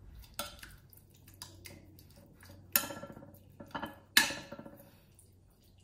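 Metal spoon clinking and scraping against a metal frying pan and a glass Pyrex baking dish as vegetables are spooned in and spread. There are several sharp, ringing clinks, the loudest about four seconds in.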